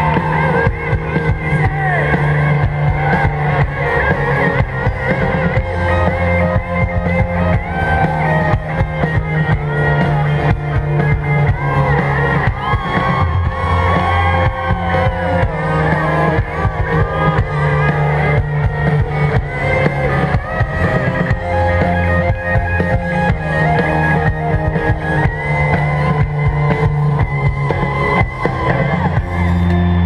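Live rock music from a band on stage: electric guitar, bass and drums with a steady beat.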